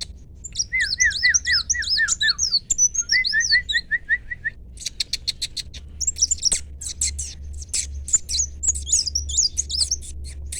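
A kolibri wulung sunbird singing: quick runs of high, slurred up-and-down notes, about five a second, broken by short pauses, with a rapid string of sharp ticking chips through the second half.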